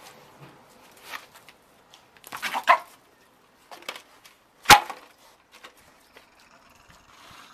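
Small dog and pig scuffling at a food bowl: a short burst of snapping and scraping, then one loud, sharp knock about halfway through.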